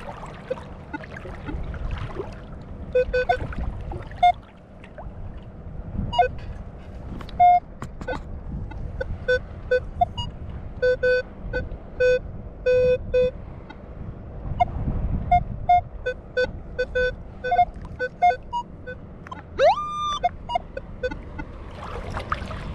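Minelab Equinox 800 metal detector giving runs of short beeps at two or three pitches as it is swept back and forth over a target buried in the sand, with a short rising tone about twenty seconds in. Low sloshing of water around wading legs underneath.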